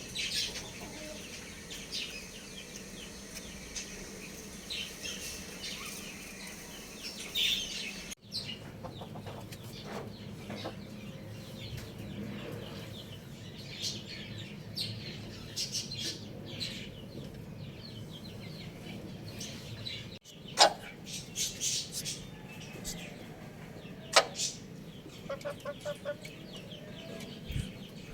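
Chickens clucking with short high chirps from small birds or chicks, and a few wing flaps. The background changes abruptly twice, about a third and two thirds of the way through.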